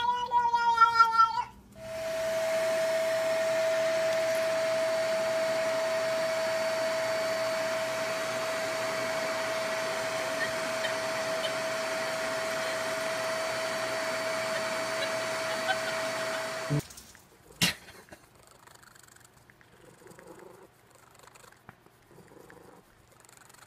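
A cat's drawn-out yowl ends about a second and a half in; then a vacuum cleaner runs steadily, a rushing hum with a high steady whine, for about fifteen seconds and cuts off suddenly, followed by a single sharp click.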